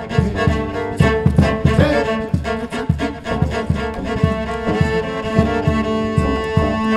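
Solo cello played in a rhythmic, driving pattern: a fast, steady pulse of short low strokes under sustained ringing notes, with the player singing along.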